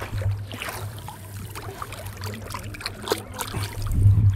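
Shallow seawater sloshing and trickling around hands and wading feet at the shoreline, with wind rumbling on the microphone, strongest near the end.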